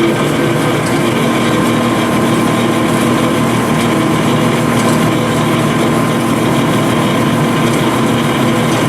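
Marvel Series 8 Mark II vertical band saw running with no load, its blade and drive turning at speed while the column power-feeds. A steady mechanical hum with a held whine.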